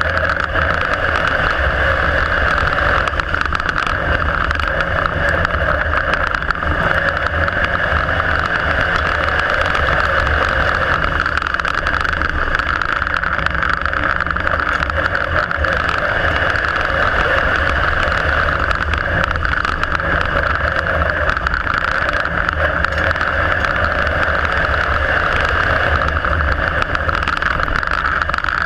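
Onboard sound of an IMCA Modified dirt-track race car's V8 engine running hard at racing speed, heard from inside the cockpit. The engine note is steady and loud, without big rises or drops in pitch.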